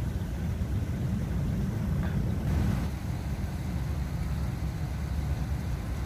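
Low, steady rumble of wind buffeting the microphone, with no distinct impact standing out.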